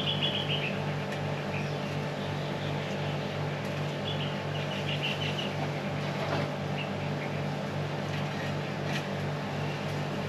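A steady low mechanical hum, like a motor or engine running, with birds chirping in short bursts of quick high notes three times.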